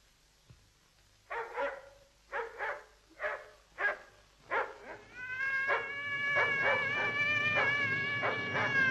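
A dog barking in short repeated barks, about one a second. From about five seconds in, a long steady high wail holds over the barking, with a rising rumble of noise underneath.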